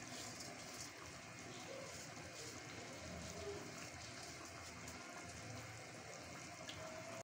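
Faint, steady bubbling and hiss of a large pot of boiling chicken stock as soaked rice is tipped into it from a perforated colander.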